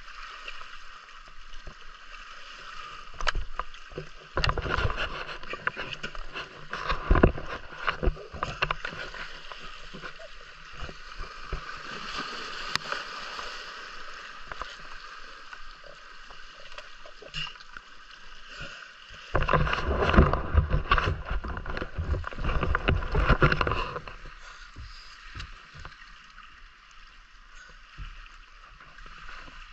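Sea water washing and sloshing among shoreline rocks, heard through a waterproof camera housing, which muffles it. It grows louder with rushes of splashing and knocks about four to nine seconds in and again from about nineteen to twenty-four seconds.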